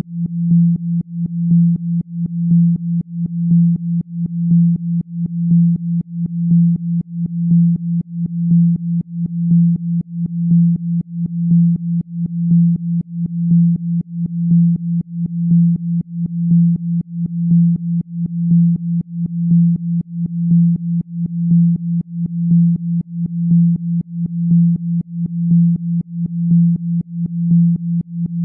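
A single low, pure electronic tone held steady in pitch, swelling and fading in level at an even rhythm: a generated sound-healing 'Rife frequency' tone meant for spine regeneration.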